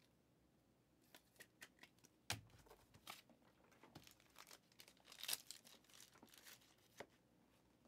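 Faint rustling and light taps of trading cards and pack wrappers being handled, with a sharper tap about two seconds in and a louder rustle a little after five seconds.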